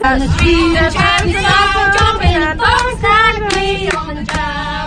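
A woman singing loudly into a handheld microphone, over a heavy low rumble.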